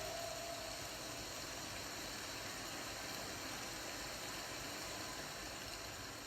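A faint last tone dies away in the first second. Then a steady, even hiss of background noise: the recording's room noise with no music playing.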